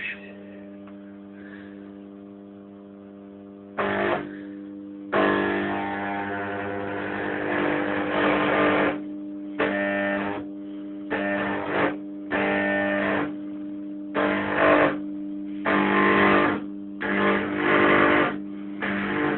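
Microwave oven transformer humming steadily, with high-voltage arcs buzzing loudly in bursts over it: a short one about four seconds in, a long one of about four seconds, then shorter ones every second or so.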